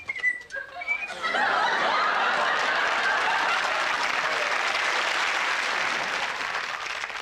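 Studio audience applauding with some laughter, swelling up about a second in, holding steady, then slowly fading near the end. A few short whistled bird-call notes come just before the applause.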